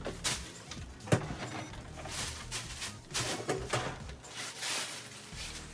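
Handling noise of a flat-screen TV being lowered and laid face down on a plastic folding table: scattered knocks and clicks, a sharp one about a second in, with rubbing and rustling between.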